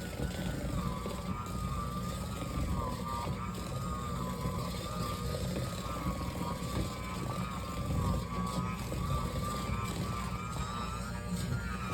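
Electric hand mixer running, its beaters creaming butter, sugar and eggs in a bowl. The motor's whine wavers up and down in pitch as the beaters work through the mixture. It is loud enough to drown out talk.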